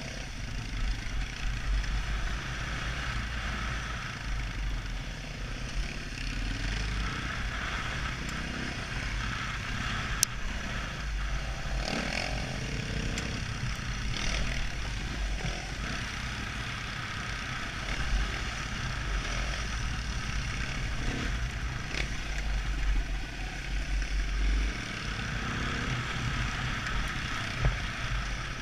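Husqvarna two-stroke enduro dirt bike running under way on a dirt trail, heard from a helmet camera with heavy wind buffeting. A few short sharp clacks come through, one about ten seconds in and another about twenty-two seconds in.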